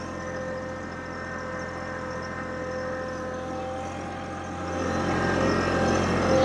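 TYM T264 compact tractor's diesel engine running steadily as it tows a broadcast spreader across tilled ground, growing louder about five seconds in as the tractor comes closer.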